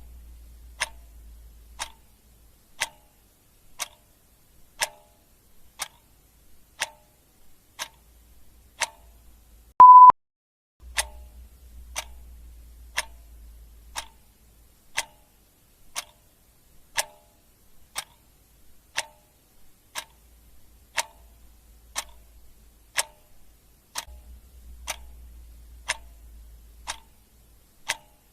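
Clock ticking steadily, one tick a second. About ten seconds in, a short, loud single-pitched beep sounds once.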